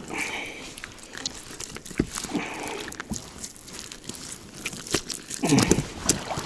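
Close-up crackling and rustling of a wet nylon gillnet worked by hand as crucian carp are pulled out of the tangled mesh, with irregular small clicks and crunches.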